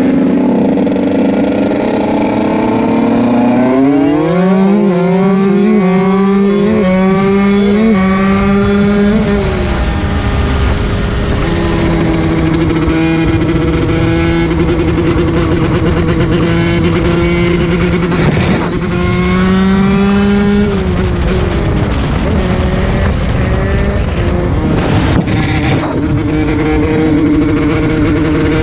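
125 cc two-stroke dirt bike engine at full throttle, revs climbing and dropping in steps as it shifts up through the gears from about four seconds in. It holds high revs for several seconds, eases off a little past two-thirds of the way, then winds up again near the end.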